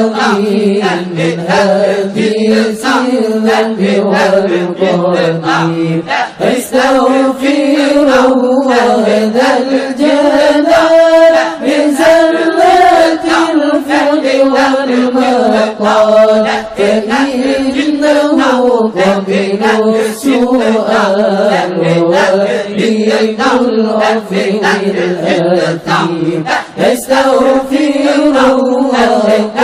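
Islamic dhikr chanting: a melodic chant, held long and rising and falling slowly in pitch, without pause.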